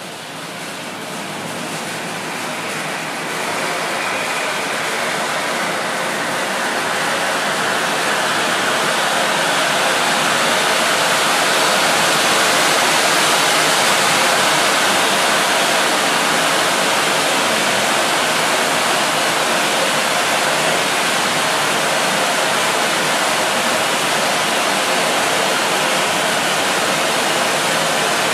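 Silver stage firework fountain with red pistil, 5-metre spray, burning with a steady rushing hiss of spraying sparks. It builds up over the first several seconds as the fountain reaches full height, then holds steady.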